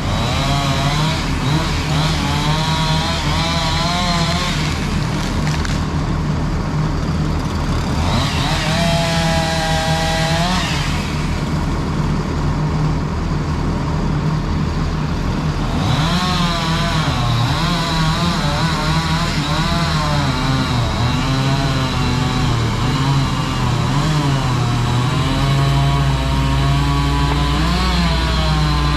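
Chainsaw running, its pitch rising and falling as the throttle is worked, over a steady lower engine drone. A deeper rumble joins near the end.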